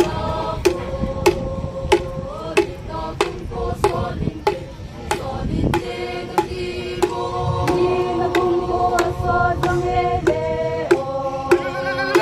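Folk music with a steady drum beat under a melody of long held notes that step from pitch to pitch.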